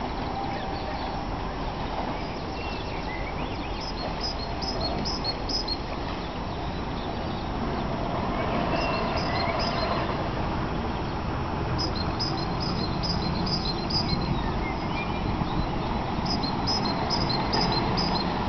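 River cruiser's engine running with a steady low rumble, growing louder about halfway through as the boat draws closer. A small bird sings short runs of high chirps several times over it.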